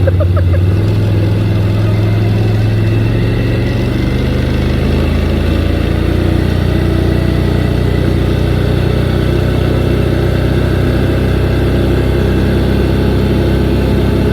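Pickup truck engine running steadily as the truck drives slowly, its pitch shifting over the first few seconds and then holding even.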